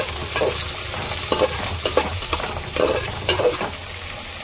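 Chopped onions sizzling as they fry in hot oil in a pan while being stirred. Irregular scrapes and knocks against the pan come every half second or so.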